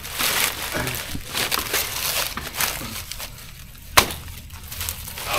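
Dry banana leaves and papery stem sheaths crackling and rustling as they are handled and torn from a banana stem. There is one sharp crack about four seconds in.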